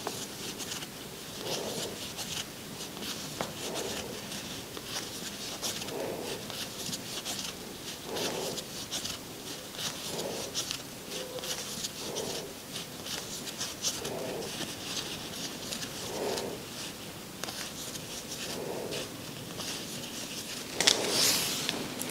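Faint rustling and scratching of a crochet hook working yarn in single crochet stitches, with a soft rub every second or two. Near the end comes a louder swish as a long length of yarn is pulled out.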